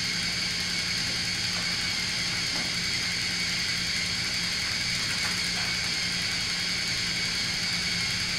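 Battery-powered Thomas & Friends TrackMaster toy train motors running with a steady whirring hum that holds one pitch, with a few faint plastic taps as the trains are handled.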